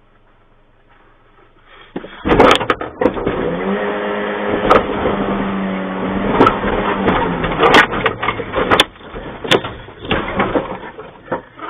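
An African elephant's tusks and head bang against and crush a pickup truck's sheet-metal bonnet: about half a dozen sharp bangs and crunches starting about two seconds in. Under them the truck's engine runs hard, a steady drone through the middle of it.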